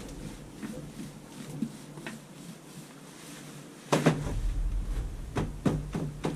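A few sharp knocks and clunks, the first about four seconds in and loudest, with a low rumble, then several more in quick succession.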